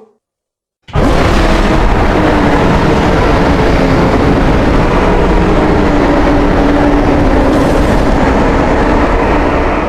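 A giant-monster roar sound effect: one long, loud, harsh and rasping roar that starts abruptly after a moment of silence, holds for about nine seconds, then fades out.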